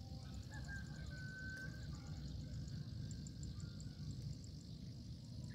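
Quiet lakeside outdoor ambience: a low steady rumble, a faint thin whistle lasting about a second near the start, and an insect ticking faintly and rapidly at a high pitch.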